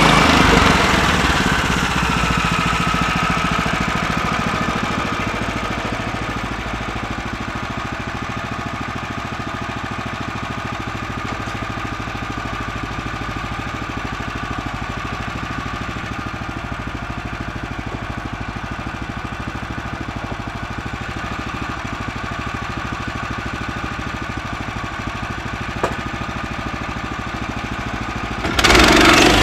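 Small gas engine of a Woodland Mills HM126 band sawmill winding down from full throttle to a steady idle over the first few seconds, then idling evenly with a single faint click late on. It throttles up sharply again about a second before the end.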